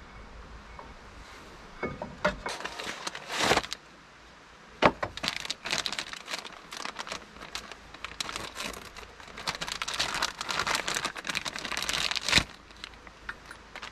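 Clear plastic parts bag crinkling as hands handle and open it, in irregular crackly bursts that start about two seconds in, pause briefly around four seconds, and stop abruptly near the end.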